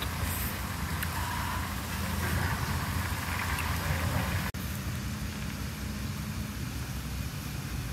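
Steady low engine-like hum over a faint even hiss, with a brief dropout about four and a half seconds in.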